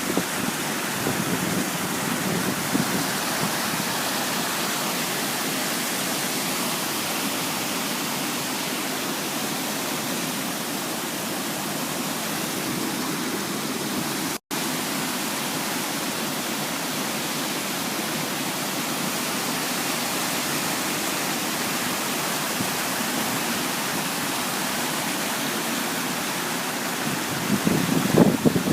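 Floodwater of a swollen stream rushing steadily, with a very brief cut-out about halfway through.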